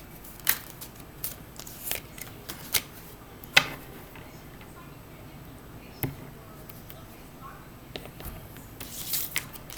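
Tarot cards being shuffled and handled: a scatter of short, sharp card snaps and slaps, the loudest about three and a half seconds in and a quick cluster near the end.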